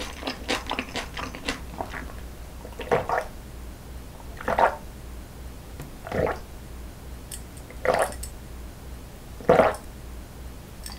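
A person drinking water from a glass in big gulps, one swallow about every second and a half, after a run of quick small clicks in the first two seconds.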